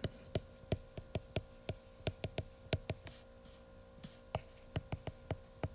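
Stylus tip tapping and clicking on a tablet's glass screen during handwriting: a string of faint, irregular clicks, three or four a second, with a pause of about a second past the middle, over a low steady hum.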